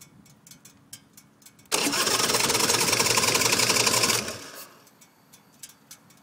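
A 2009 Big Dog Ridgeback motorcycle's V-twin engine turned over on the electric starter. It starts abruptly about two seconds in, runs at a fast, even rhythm for about two and a half seconds, then stops and dies away without settling into an idle, as the owner troubleshoots the bike.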